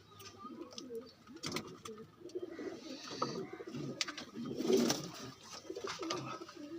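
Domestic pigeons cooing in low, warbling calls, with a few short clicks in between.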